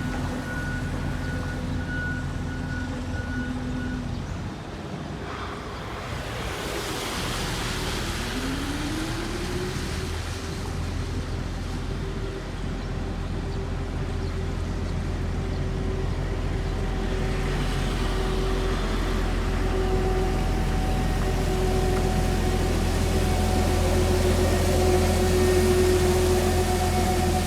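Heavy road-construction machinery running steadily. One engine revs up about a third of the way in and holds its higher note, and the machine noise grows louder toward the end. A faint high steady tone stops after a few seconds.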